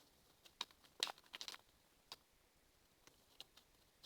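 Origami paper being folded and creased by hand: scattered faint crinkles and taps, with a short cluster of crackles about a second in.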